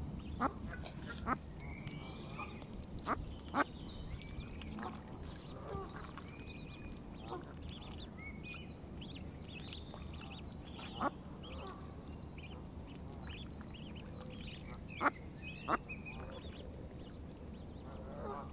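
Mallard ducklings peeping continually in short, high chirps. About seven sharp, louder sounds stand out above the peeping.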